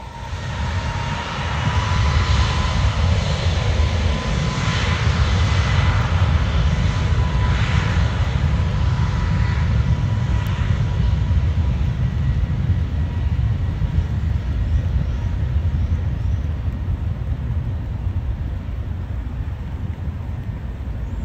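Boeing 737 MAX 8's jet engines running at full takeoff power: a loud, deep, steady rumble that swells over the first two seconds, with a faint steady whine over it for the first half.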